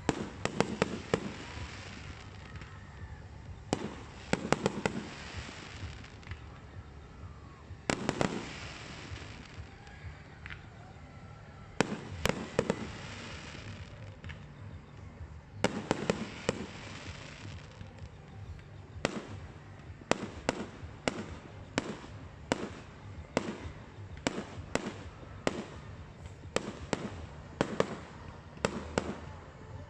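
Aerial fireworks shells bursting with sharp bangs and crackle, in clusters every few seconds at first, then a quick run of single bangs more than once a second through the second half.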